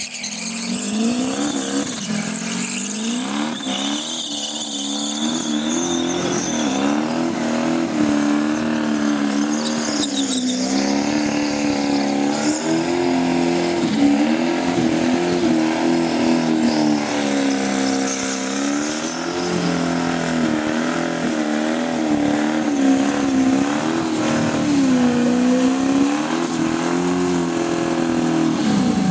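Turbocharged Holden VN Commodore doing a burnout: the engine is held at high revs, its pitch wavering up and down continuously as the throttle is worked, over the hiss and squeal of the spinning rear tyres.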